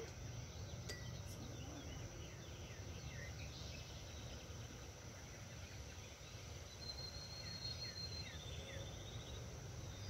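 Faint outdoor ambience: a steady high insect drone with scattered small chirps, and a brief high trill about seven seconds in.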